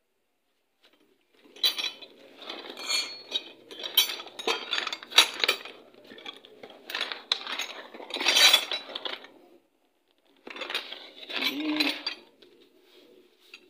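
Metal hand tools clinking and clattering against each other as they are sorted through, starting about a second and a half in, pausing briefly, then clattering again near the end.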